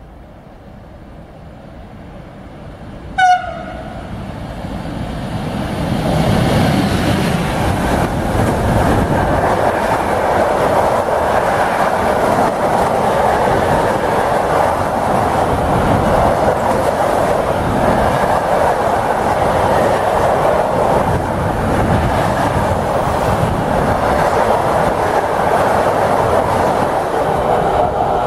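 Freight train of enclosed car-transporter wagons running through a station: its rumble builds as it approaches, a short horn blast sounds about three seconds in, then the loud, steady noise of wheels and wagons on the rails goes on as the long train passes.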